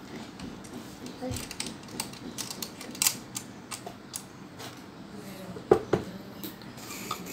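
Small metallic clicks and taps of a sewing machine's bobbin case being handled and fitted into the shuttle under the tilted-back head. A louder knock comes near the end, as the machine head is set back down onto its cabinet.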